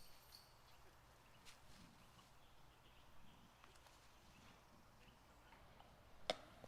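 Near silence with faint outdoor background and scattered soft ticks, broken by one sharp click or knock near the end.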